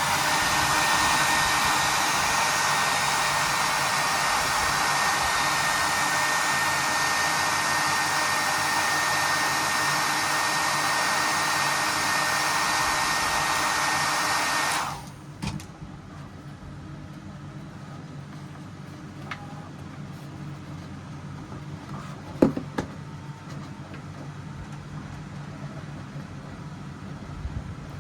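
A fan-driven hot-air blower, like a hair dryer or heat gun, runs with a steady rush and a thin whine for about fifteen seconds, then switches off. A faint hum and a few small knocks follow.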